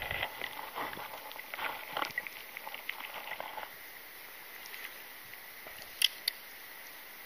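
Light splashing and dripping water at a river's surface as a brown trout is released, a run of small crackly splashes that dies away after about three and a half seconds. Two sharp clicks follow near the end.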